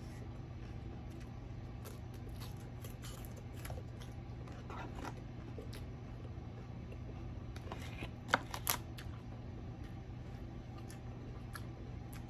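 Close-up eating sounds: someone chewing fried food, with scattered small crunches and clicks and two sharper clicks about eight seconds in, over a steady low hum.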